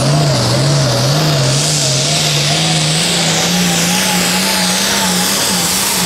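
Modified International diesel farm tractor pulling a weight-transfer sled at full throttle, running loud and steady under load. Its engine pitch wavers up and down about twice a second and slowly climbs as it goes down the track.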